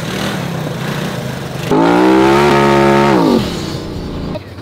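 Small ATV engine running, then revved up about two seconds in and held at a steady high pitch for about a second and a half before dropping back, as the rider holds a wheelie.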